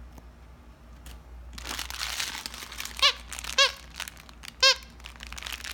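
Plush dog toys crinkling and rustling as they are handled, with three short, loud squeaks from a toy squeaker, the first about three seconds in and two more within the next two seconds.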